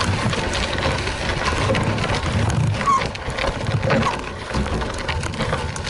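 Trek 920 gravel bike rolling over a dirt and gravel fire road: tyres crunching on loose gravel with many small rattles and clicks from the bike, under a steady rumble of wind on the handlebar-mounted action camera's microphone. A few brief high chirps come through around the middle.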